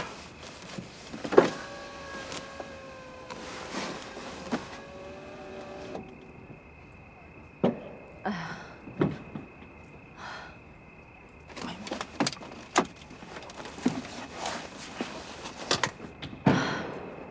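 A car door is opened with a sharp clunk, followed by a held tone lasting a few seconds, then scattered footsteps on pavement.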